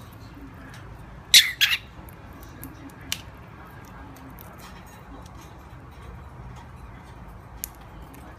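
Pet bird imitating a human sneeze: a short, noisy squawk in two or three quick bursts about a second and a half in. Two faint clicks follow later.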